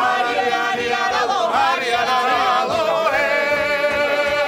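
Several voices singing a Georgian folk-style refrain together to panduri accompaniment, moving through a few pitches and then holding one long note from about three seconds in.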